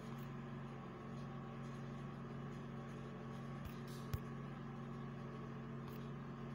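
Steady low hum over a faint background hiss, with one sharp click about four seconds in.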